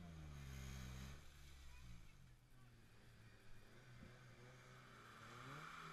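Off-road 4x4 engines revving up and down, faint, as a mud-stuck vehicle is pulled out on a tow strap; a rushing hiss builds near the end.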